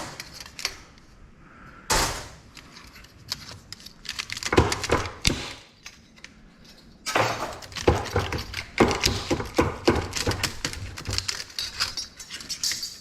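Steel transformer core laminations being handled and worked apart, clinking and clattering against each other in bursts with occasional knocks, densest in the second half.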